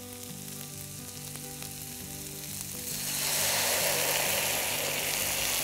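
Caramelizing onions frying in a pan, with a loud sizzle that surges about three seconds in as cachaça is poured into the hot pan for flambéing.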